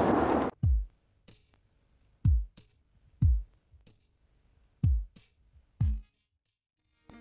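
Audience applause cuts off about half a second in. Then sparse electronic theme music starts: deep drum-machine bass drum hits that drop in pitch, about one a second in an uneven pattern, with fainter sharp clicks between them.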